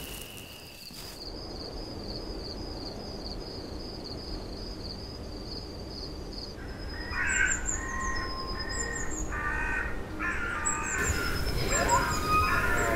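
Elk calling: a run of short, high-pitched tonal mews and squeals that begins about halfway through, with a rising squeal near the end. Before the calls, a thin high trill pulses steadily.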